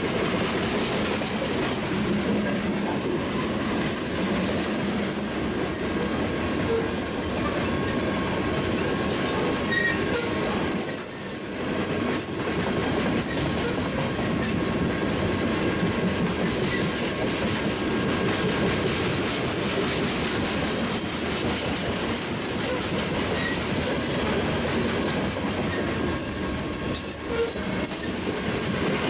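A CSX freight train of gondola cars rolling past close by: a steady rumble and rattle of steel wheels on the rails, with a faint, steady high wheel squeal over it.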